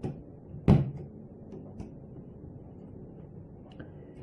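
Handling the parts of an old Soviet electric drill while opening its trigger switch: one sharp knock a little under a second in, then a few faint clicks.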